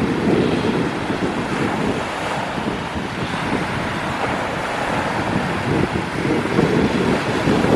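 Strong north wind buffeting the microphone in uneven gusts, over waves washing on the shore.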